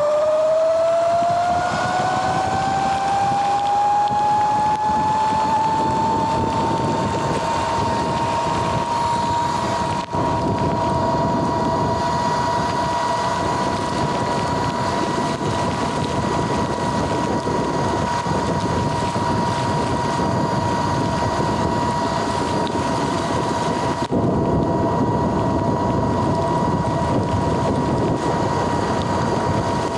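Sur-Ron electric dirt bike under way. The whine of its motor and chain drive, recently converted from belt to chain, rises in pitch during the first few seconds as it speeds up, then holds one steady pitch at cruising speed. Wind rushes on the microphone throughout.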